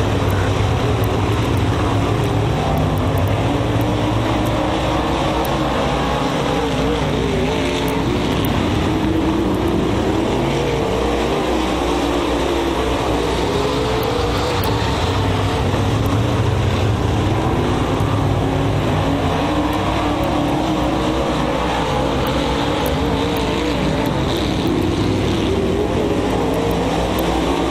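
A pack of dirt-track modified race cars with V8 engines running hard around the oval, their engine notes wavering up and down as the cars go through the turns and down the straights.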